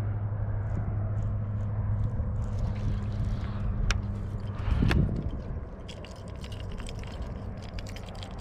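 Baitcasting reel cranked at a steady pace during a lure retrieve, giving a low, even whir with a scraping grain. A couple of sharp clicks come about four and five seconds in, and then the whir stops, leaving lighter rod and line handling noise.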